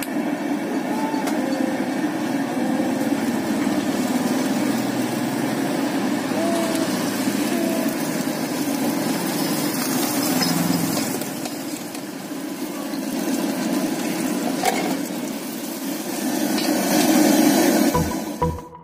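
Steady roar of the gas burner under a martabak griddle while the dough cooks, with faint voices in the background; it swells near the end, where electronic music cuts in.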